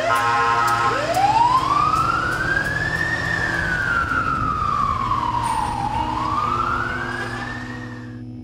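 Emergency vehicle siren: a fast yelp at the very start, then a slow wail that rises, falls and rises again before cutting off near the end, over a steady low hum.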